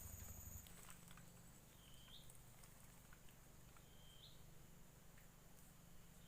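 Near silence: faint outdoor ambience with a short, high animal call that rises at its end, repeating about every two seconds. A faint high steady tone and low hum stop about half a second in.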